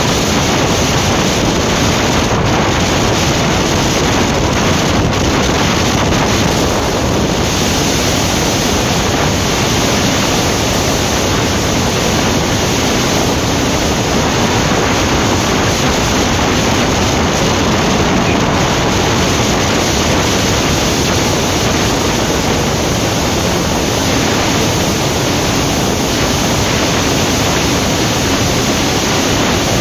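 Steady, loud wind rush over a motorcycle-mounted phone microphone at about 100 km/h, covering the bike's engine.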